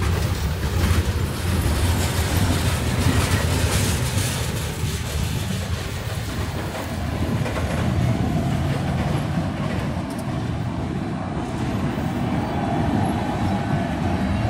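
Freight train cars rolling past close by: a steady low rumble of steel wheels on rail, with clanks and rattles from the cars and their couplers, most in the first few seconds.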